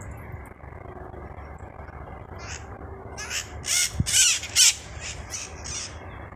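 A bird giving a run of short, harsh squawking calls, starting about halfway in and loudest near the middle, over low background noise.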